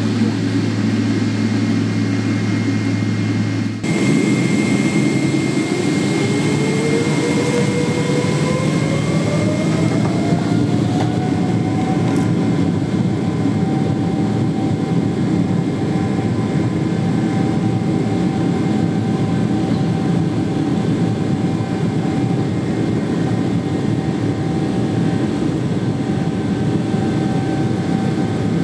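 Boeing 777-300ER's GE90 jet engines, heard inside the cabin, spooling up for takeoff: about four seconds in the sound changes abruptly, then a whine rises in pitch for several seconds and levels off over a steady rumble as the engines hold takeoff thrust.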